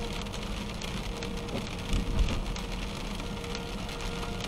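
Rain spattering on a moving car's windshield and body over steady road and engine noise, with a short low thump about two seconds in.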